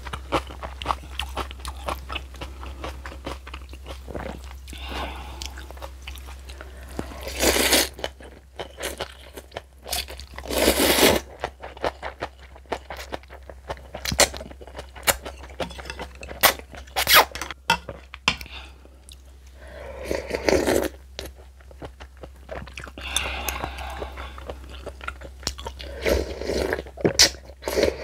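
Close-miked eating: crisp crunching and chewing of kimchi, with several longer slurps of noodles in between.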